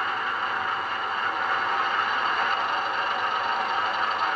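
A LokSound sound decoder in a Bachmann 00 gauge Cravens class 105 diesel multiple unit model plays a steady diesel engine idle through the model's small onboard speaker. It sounds thin, with little bass.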